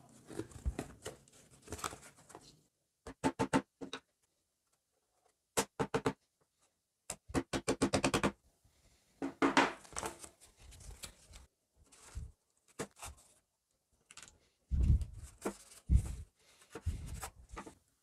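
Hammer tapping a cardboard sheet laid over a washing-machine transmission to mark its bolt holes: short groups of sharp taps with a brief ring, ending in a quick run of about eight taps. Cardboard handling and a few heavier thuds follow near the end.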